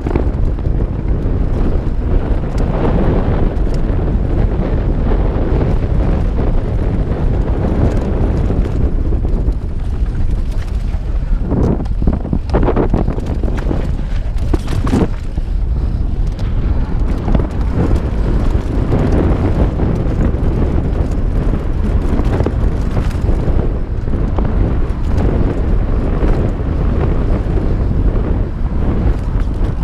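Wind buffeting a GoPro HERO4 Black's microphone while a Santa Cruz Bronson mountain bike is ridden fast down dirt trail, with steady tyre and trail rumble and the bike clattering over rough ground. A few sharper knocks come near the middle.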